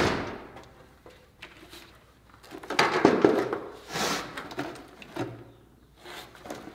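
Handling noise from the cut-open plastic case of a 12 V lithium-ion car battery: a sharp knock at the very start, then irregular rustles and knocks from about two and a half to five seconds in as the cut-off lid is held open and worked by gloved hands.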